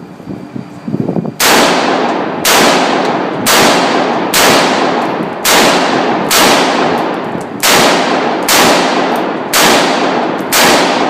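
AR-15 rifle fired semi-automatically, ten shots at an even pace of about one a second, each shot trailing off in echo.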